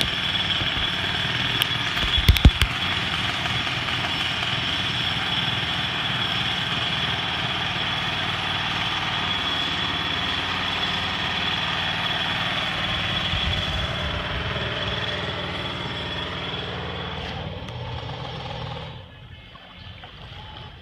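Construction machinery running steadily, with a constant high whine over a broad mechanical din and a few sharp knocks about two seconds in. The noise falls away near the end.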